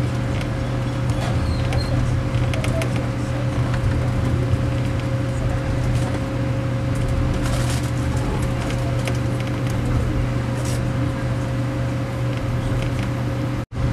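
Steady rumble and low hum inside a moving passenger train carriage, rolling at low speed, with a steady mid-pitched tone over it and faint scattered clicks. The sound cuts out for an instant near the end.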